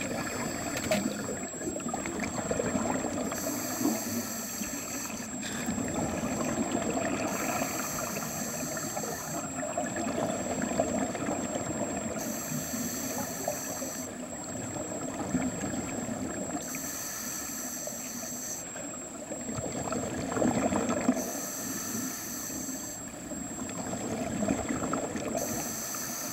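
Scuba diver breathing through a regulator, heard underwater through the camera housing: a hiss with each breath, roughly every four seconds, over a constant bubbling and water noise. A steady high tone runs underneath.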